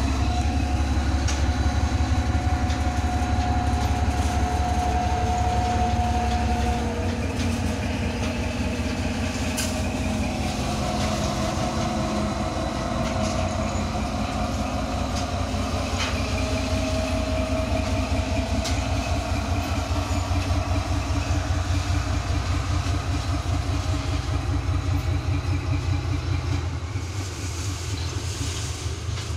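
Diesel-hydraulic shunting locomotive (TGM4B) running under a steady low engine rumble as it moves a cut of hopper and tank wagons, with occasional sharp clicks of wheels over rail joints. A thin whine comes and goes over the rumble.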